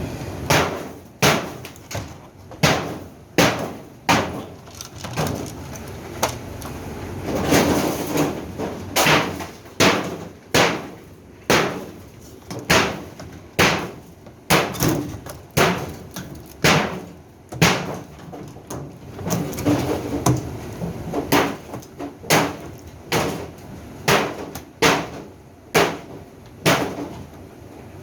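Repeated hammer blows, about one a second, knocking apart parts of a Whirlpool top-load washing machine.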